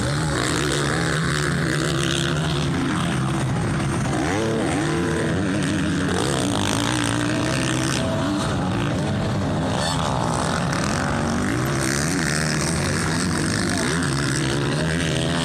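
Several motocross bikes' engines revving hard as the bikes race past, the pitch rising and falling with the throttle.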